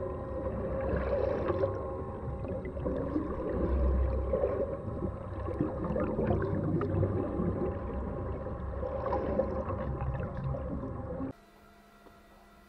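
Underwater sound effects: a dense low rumble with bubbling and gurgling and a few steady humming tones, as of a submarine and an underwater drone moving through water. About eleven seconds in it cuts off suddenly to a faint hum with light ticking.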